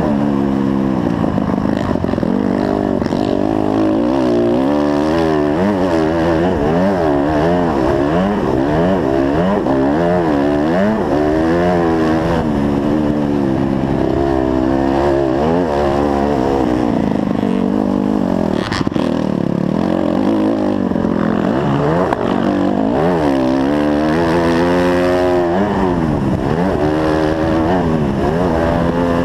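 Dirt bike engine heard on board, revving hard and easing off over and over as it is ridden through the track, its pitch climbing and dropping with each throttle change and gear shift. A single sharp knock about two-thirds of the way through.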